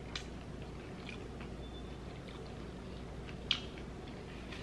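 A plastic fork clicking and scraping against a plate: a few light clicks, the sharpest about three and a half seconds in, over a steady low hum.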